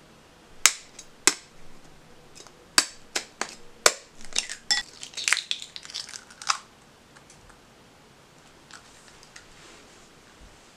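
Hen's egg tapped sharply several times against a hard edge, then its shell crackling and crunching as it is broken open over a glass bowl.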